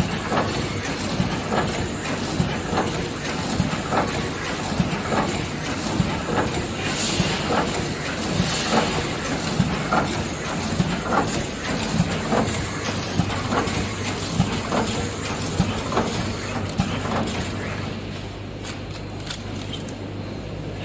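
Vertical form-fill-seal packing machine running, knocking in a steady rhythm about once a second as it seals and cuts each pillow pouch, over a constant machine noise. Near the end the knocks fade and a low steady hum remains.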